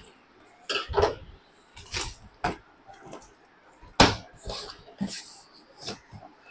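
Large cardboard TV carton being opened by hand: irregular scrapes, rustles and knocks as the lid and top flaps are worked loose and pulled apart, the loudest knock about four seconds in.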